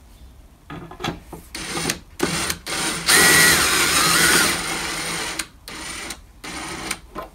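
Cordless drill-driver driving screws into a metal plate in a series of short runs, the longest and loudest about three seconds in.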